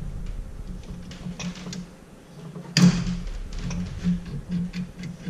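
Hand tools working the alternator mounting bolts: scattered metal clicks and clinks of a wrench and ratchet, with one louder metallic knock a little under three seconds in.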